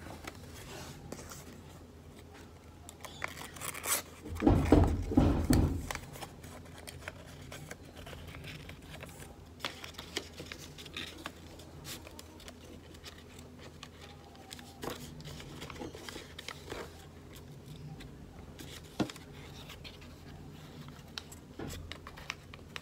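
A sheet of origami paper being folded and creased by hand: rustling and small crackles throughout. About four and a half seconds in comes a louder burst of handling noise with a low rumble, lasting about a second and a half.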